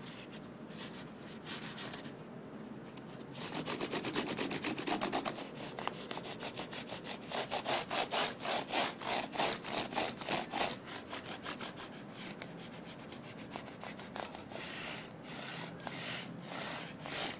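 Quick back-and-forth rubbing over a keyboard's keys as it is scrubbed with a solid cleaning cream, about four strokes a second. The rubbing comes in spells, strongest from a few seconds in until about ten seconds, then lighter, picking up again near the end.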